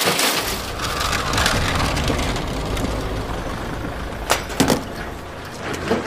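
Steady road and engine noise of a vehicle cruising at highway speed, heard from inside the cab, with two short knocks a moment apart about four seconds in.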